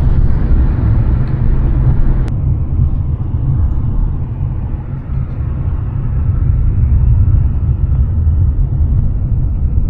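Steady low road rumble of a moving car heard inside the cabin, with a single short click about two seconds in.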